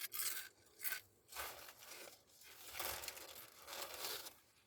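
Someone eating close to the microphone: five or six short bursts of crunching and rustling.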